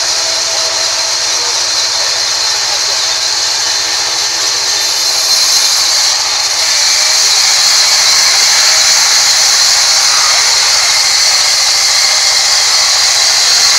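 Band sawmill blade cutting lengthwise through a rain tree log, a steady high-pitched hiss of the saw in the wood that grows a little louder about halfway through.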